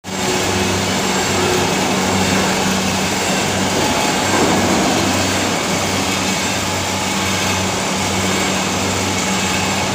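Electro-galvanized wire production line running, with its spool take-up winders turning and galvanized wire feeding through. The result is a loud, steady mechanical drone with a low hum that swells and fades about once a second.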